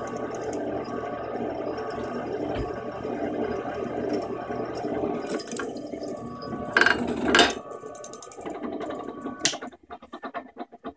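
Bench-top drill press running and drilling through a metal square tube, with a steady motor hum. About seven seconds in there are two loud, sharp scrapes, then the motor stops and a few scattered clicks and knocks follow.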